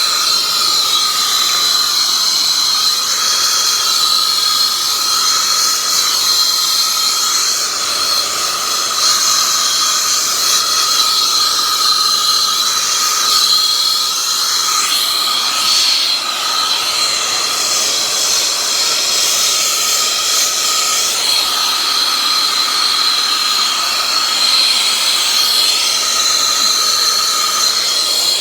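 Soldering torch burning steadily, heating big copper pipe fittings: a loud, even hiss with a steady high whistle running through it.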